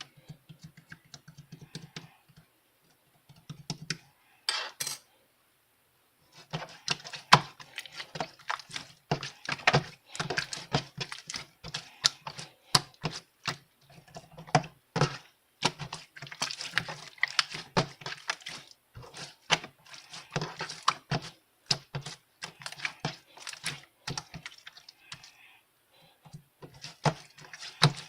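Rapid run of light clicks, sparse for the first few seconds, then dense and near-continuous from about six seconds in.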